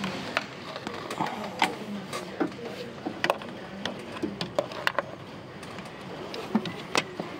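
Irregular light clicks and taps of hands touching metal lines and parts in a truck's engine bay, over a low steady hum.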